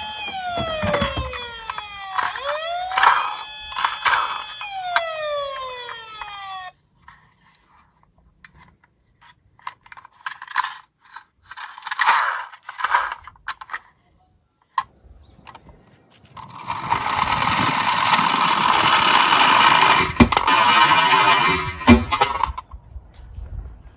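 A siren sound effect whose tones slide down in pitch over and over, with sharp clicks among them; it cuts off suddenly about seven seconds in. Scattered clicks and clatters of toy minicars follow. In the last third a steady rushing noise runs for about six seconds, with a few sharp knocks.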